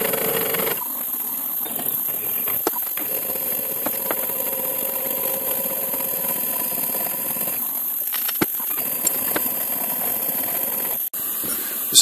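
Milling machine spindle running steadily with a small centre drill in the chuck, spot-drilling a clamped metal plate, with a few light clicks. The sound breaks off briefly about eleven seconds in.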